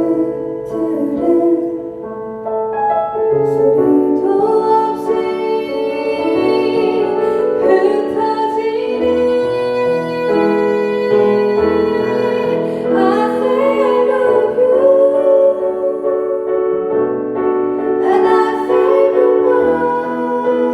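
A female vocalist singing a slow song over keyboard accompaniment, with held, wavering sung notes over steady chords.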